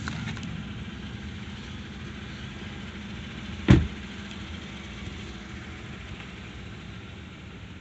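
A car door shuts once, sharply, about halfway through, over the steady low hum of a car engine idling.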